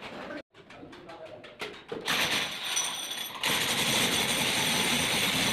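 Power drill running, a steady noisy drone with a high whine. It starts about two seconds in and gets louder about a second and a half later.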